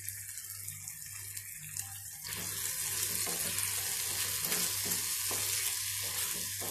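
Lemon pieces sizzling in hot sesame oil in a pan, a steady hiss that grows louder about two seconds in as they are stirred with a spoon.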